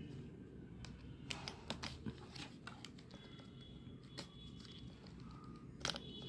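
Scattered light clicks and taps of hard plastic parts being handled as the casing of a handheld rechargeable mini fan is opened up, the loudest pair near the end.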